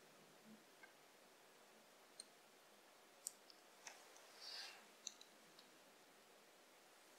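Faint small clicks and taps of a tiny plastic model car being handled as a thin charging pin is plugged into its underside, with a brief scrape about two-thirds of the way through. Otherwise near silence.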